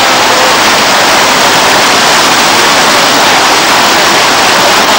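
Water pouring over a small weir into a stream: a loud, steady rush that does not change.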